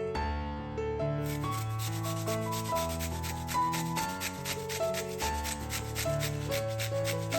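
Fast, even rasping strokes, about five a second, starting about a second in, like food being rubbed or grated in the kitchen, over soft piano music.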